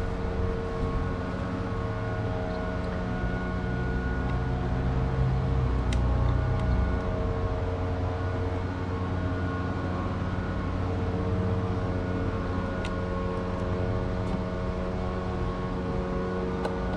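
Steady mechanical drone with several held tones and a low rumble that swells around the middle, from a running machine nearby. A few faint clicks sound over it.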